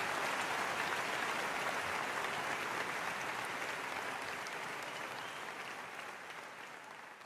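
Studio audience applauding after a song, a steady clapping that gradually fades out.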